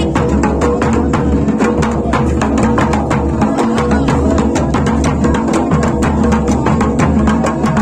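Large double-headed folk drums beaten with curved sticks in a fast, steady, dense rhythm.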